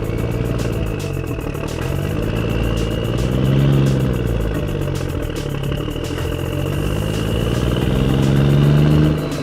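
A motor-like hum that rises and falls in pitch twice, getting louder at each peak, over an even ticking beat.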